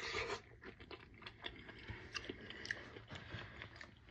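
A person chewing food close to the microphone: soft, irregular mouth clicks.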